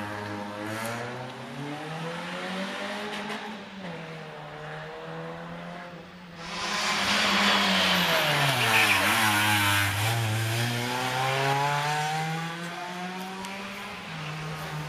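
Rally car engines at high revs. One car runs through its gears as it drives off. About six seconds in, a second, louder car arrives: its engine note drops as it passes, then climbs again as it accelerates away.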